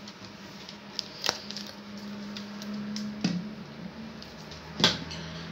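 Plastic skincare bottles being handled, giving a few scattered clicks and knocks, the sharpest one shortly before the end, over a faint steady hum.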